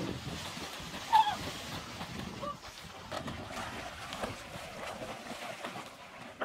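Water splashing and churning as swimmers hit and thrash through a pool, with a short high-pitched sound about a second in, the loudest moment.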